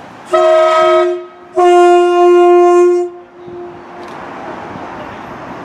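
Two-tone horn of an approaching LNER InterCity 225 electric train, sounded as two blasts: a one-second blast, then a longer one of about a second and a half. After that comes the growing rumble of the train running in.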